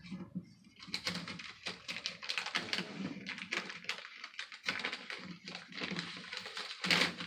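Fingers working at the top of a wooden acoustic dreadnought guitar, making a quick, irregular run of small clicks and taps.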